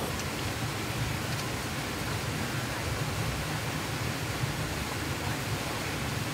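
Steady rushing outdoor background noise, even throughout with no distinct events.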